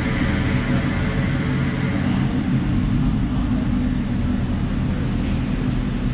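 Steady low rumble of car engine noise echoing in a concrete parking garage.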